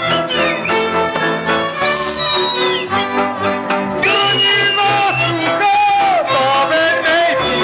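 Slovak folk band (ľudová hudba) playing lively dance music, fiddles leading over a steady beat.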